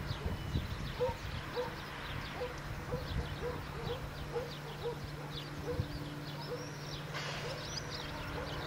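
Countryside ambience: small birds chirping, a short low call repeated every half second or so, and a faint steady low hum underneath.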